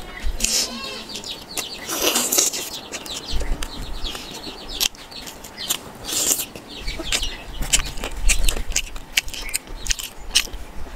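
Close-up wet chewing and lip-smacking while eating deep-fried puri dipped in vegetable curry: a run of quick, irregular mouth clicks and smacks.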